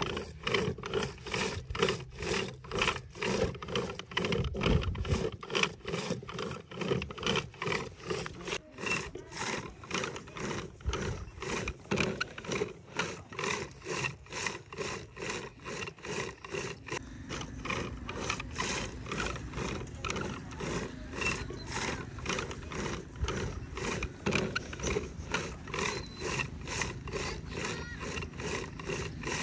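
Wooden butter churn worked by hand through curd, its strokes rubbing and creaking in an even rhythm, a little over two a second.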